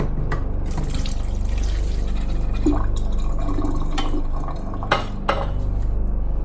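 Liquid pouring and dripping from a freshly opened can of corn, with a couple of sharp metallic clinks about four and five seconds in.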